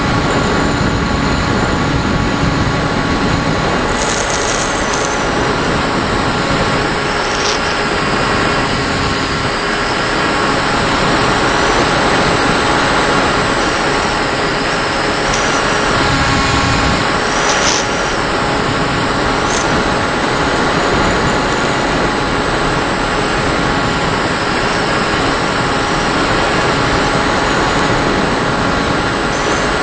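Steady, loud rush of airflow over the onboard camera of a Firstar 2000 RC motor glider in flight, with a few faint steady tones underneath.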